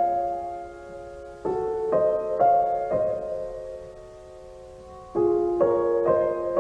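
Slow, gentle piano music: small groups of notes struck one after another and left to ring and fade, with a quieter stretch of dying notes in the middle before the next group begins.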